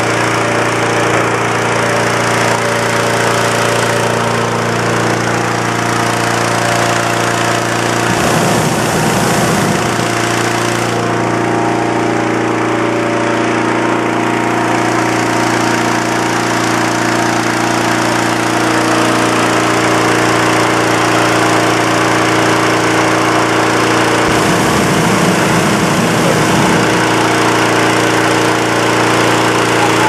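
Honda petrol engine driving a hot-air balloon inflator fan, running steadily at a constant speed with the rush of air blown into the envelope. Two brief low rumbles come through, about eight and twenty-five seconds in.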